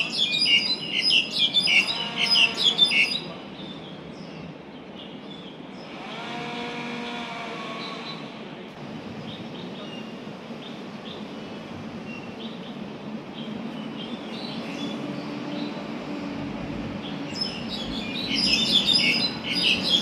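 Songbird singing in a tree: a burst of rapid, varied chirps and whistles for the first few seconds, sparser quieter calls in the middle, and another loud burst of chirping near the end.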